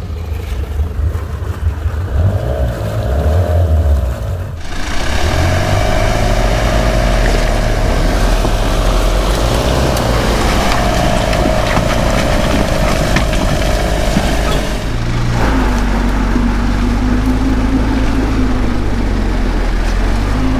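Classic Land Rover engines running under load during a river recovery and climb-out: a steady low engine note with a whine over it. The sound changes abruptly twice, about four seconds in and again about three-quarters of the way through.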